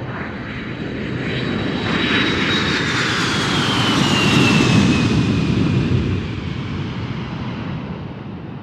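Airplane flying past, a sound effect: the engine noise swells, peaks about halfway through and fades away. A high whine in it slides down in pitch as the plane passes.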